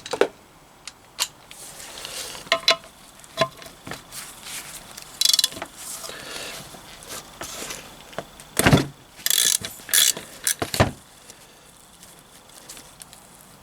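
Spanner clinking and knocking on the drain plug of a Triumph T140 gearbox casing as the plug is worked loose, in scattered metal clicks with a few louder clanks about nine and eleven seconds in.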